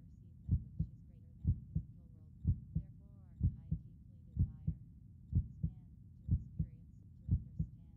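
Heartbeat sound: steady paired lub-dub thumps, about one beat a second.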